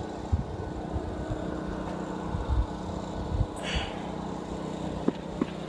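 Wind buffeting the microphone: an uneven low rumble with irregular thumps, and a brief higher hiss a little over halfway through.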